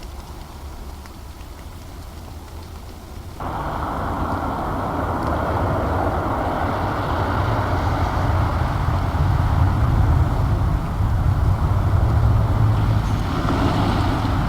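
A vehicle passing close by on a gravel road, picked up by a field recorder: its road and engine noise cuts in suddenly about three seconds in and grows steadily louder.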